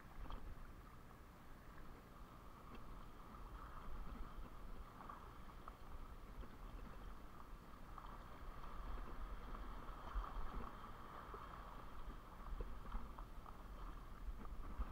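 Small waves lapping and sloshing over shallow rocks and against a camera sitting at the waterline. The sound is faint and uneven, with a low rumble that swells and eases every few seconds.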